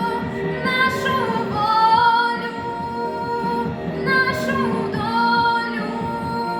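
A girl singing a song, holding long notes with slides between them, over a backing track.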